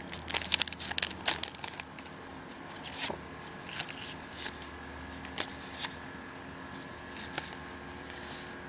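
Foil trading-card booster pack crinkling as it is pulled open and the cards are drawn out. A dense crackle for the first couple of seconds, then only occasional soft clicks as the cards are handled.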